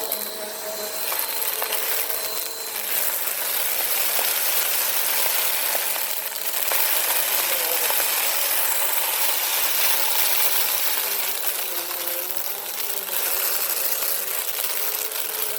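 Vacuum cleaner running steadily with its brush roll agitating a carpet strewn with sand and debris, small grit rattling through the machine.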